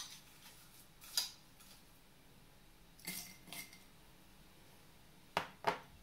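Metal spoon and crushed ice clinking against glass as ice is spooned from a glass bowl into a tall glass: a few sharp, separate clinks, two about half a second apart near the middle and two more close together near the end.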